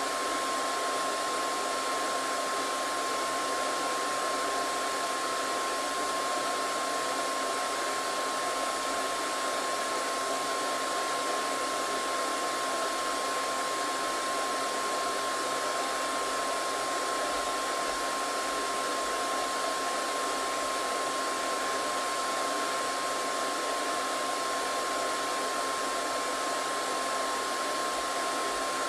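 Hair dryer running steadily: an even rush of blown air with a constant whine on one pitch.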